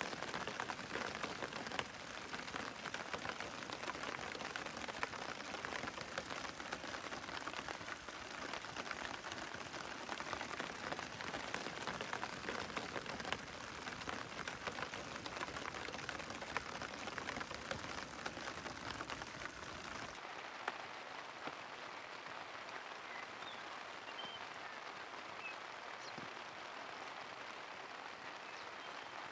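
Rain falling on a tent and tarp, a steady hiss with many separate drops ticking on the fabric. About two-thirds through it turns a little quieter and thinner, the low rumble dropping away.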